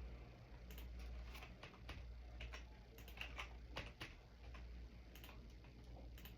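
Faint computer keyboard typing: irregular key clicks, about fifteen of them, over a steady low hum.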